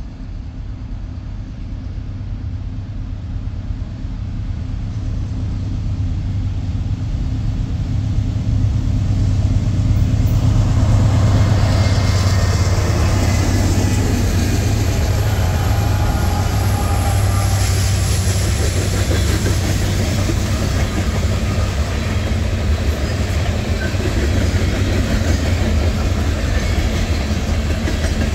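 A train approaching and then rolling past close by. It grows louder over the first ten seconds or so, then holds with steady wheel-on-rail noise over a low, even drone.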